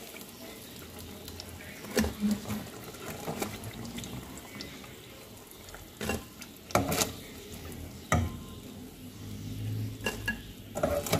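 Cornstarch-coated eggplant slices frying in oil in a pan, with several sharp clicks of metal tongs against the pan and plate as crisp pieces are lifted out.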